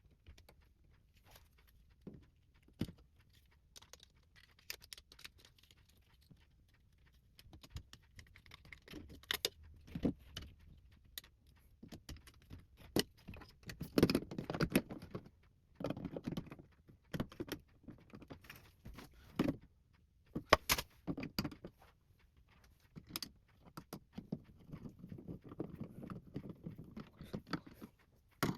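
Irregular clicks, taps and knocks, with short bursts of rattling, from the small metal and plastic parts of a fire alarm pull station being handled and fitted back together.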